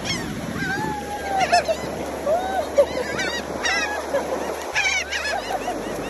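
A flock of seagulls calling, with many short squawks overlapping one another.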